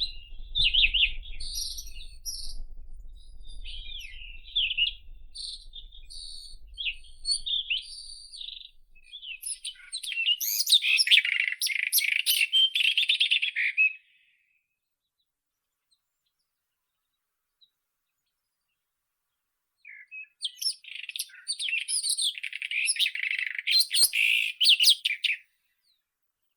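White-throated robin singing: a quick run of varied whistled, trilled and scratchy notes that grows into a dense, rapid stretch. The song cuts off abruptly to dead silence, then resumes about six seconds later with another dense, fast burst. A faint low rumble lies under the first part.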